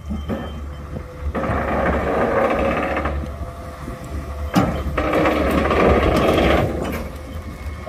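Crawler crane's cable winch paying out in two spells of about two seconds each, a mechanical rattle over the low running of a diesel engine, with a single knock between them.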